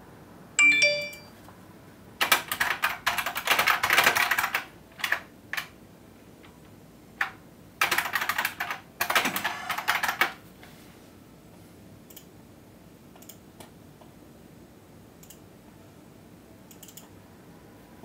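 A short electronic chime about half a second in, then two long bursts of rapid clattering clicks with a few single clicks between and after.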